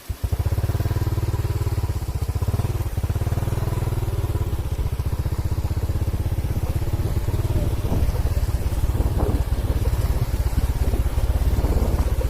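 A small engine is ticking over in slow, even beats. Right at the start it picks up to a faster, louder, steady run, with some rattling in the second half.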